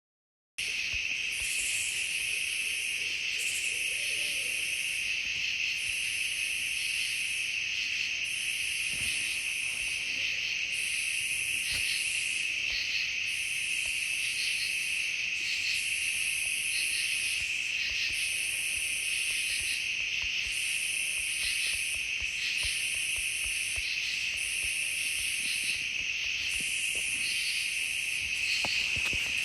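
Night chorus of singing insects: a steady high trill with a still higher pulsing song that comes in phrases about every second and a half.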